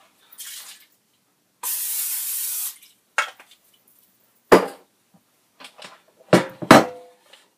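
Cooking oil spray hissing in one steady burst of about a second onto chicken wings in an air fryer basket. Several sharp knocks and clatters follow as the air fryer's basket is handled, one with a short metallic ring.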